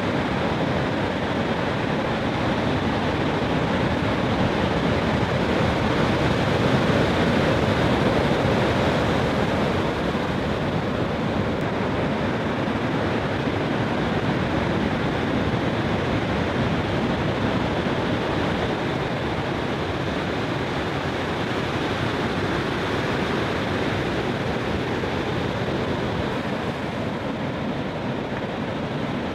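Heavy surf breaking: a steady rushing wash of crashing waves, swelling a little about seven seconds in.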